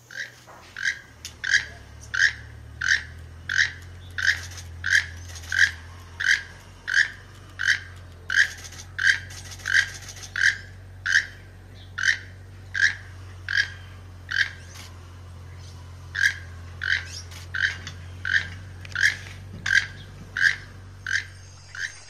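A toucan calling: a long series of short, harsh, croaking notes repeated about three every two seconds, with a brief pause about two-thirds of the way through.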